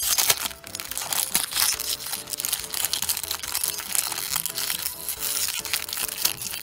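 Plastic toy packaging crinkling as it is unwrapped by hand, over background music.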